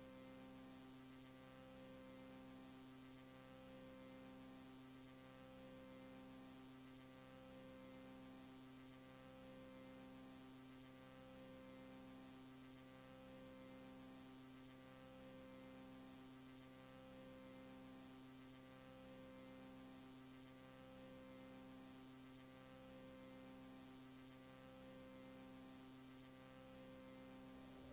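Faint steady electrical hum made of several tones, two of them pulsing on and off about every two seconds.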